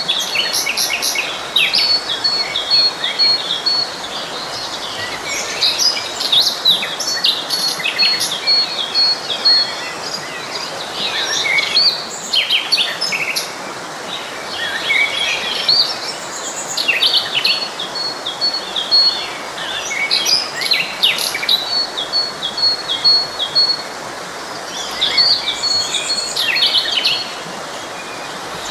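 Several songbirds chirping and singing over the steady rush of a forest stream. One bird keeps repeating a rapid, even string of identical high notes.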